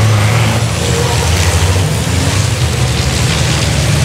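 Several race trucks' turbodiesel engines running hard as they pass close by in a pack; a loud, steady low engine sound.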